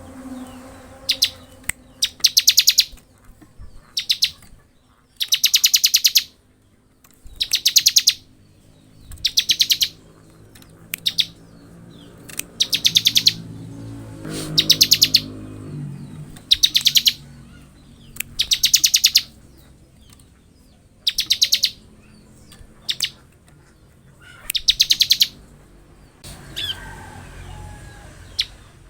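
Bar-winged prinia (ciblek) singing in its 'ngebren' style: a string of high, rapid rattling trills, each about half a second to a second long, repeated every second or two.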